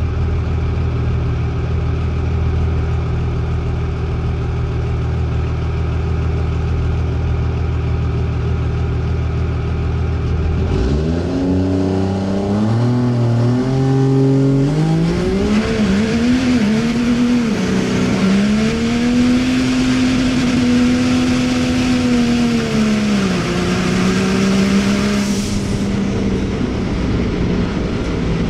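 2000 hp Cummins inline-six diesel drag truck idling steadily, then pulling hard from about ten seconds in, its engine pitch climbing in steps with dips at the gear changes and a loud rushing noise over it through the middle. The pitch drops sharply near the end and runs on lower as it backs off.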